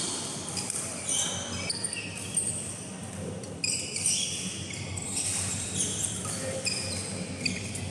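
Badminton shoes squeaking again and again on the synthetic court mat as players move through a doubles rally, with a few sharp racket strikes on the shuttlecock.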